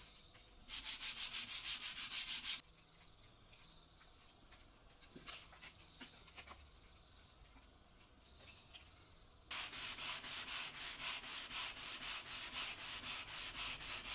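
Hand sanding a softwood board with sandpaper: two spells of brisk back-and-forth rasping strokes, about five a second, the first briefly with the fingers pressing two sheets together and the second longer, with the paper on a wooden sanding block. There are faint handling taps between them.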